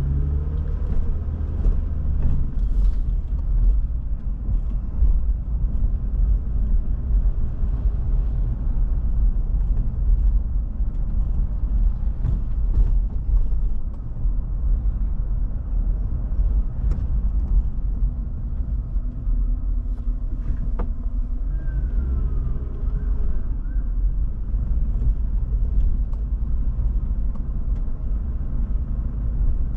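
Car driving, its engine and tyres making a steady low rumble, with a few faint creaks and ticks.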